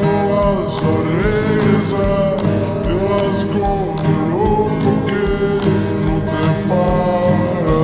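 Slowed-down, reverb-heavy indie-folk song: sustained chords under a gliding melody line, with a steady beat.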